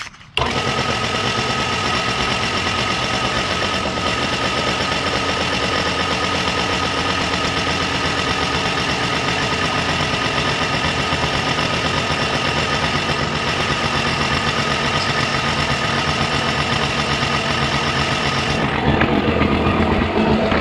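Portable electric air compressor cutting in suddenly and running steadily, its pump building tank pressure. Its tone shifts slightly near the end.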